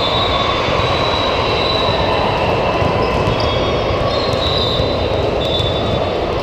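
Steady, loud, echoing din of a crowded indoor sports hall during volleyball play, with high thin tones coming and going and a few faint sharp knocks.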